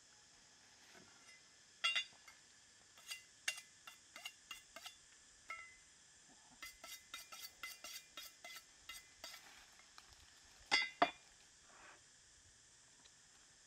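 Two steel knife blades clinking and scraping against each other as one knife is sharpened on the other: a string of short, sharp metallic clinks with a brief ring, several a second in the middle, and two louder double strikes, one near the start and one late on.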